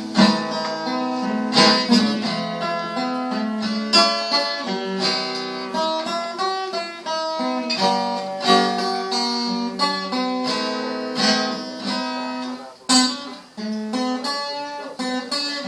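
Acoustic guitar played solo, picked notes and chords in a steady rhythm: the instrumental introduction to a song.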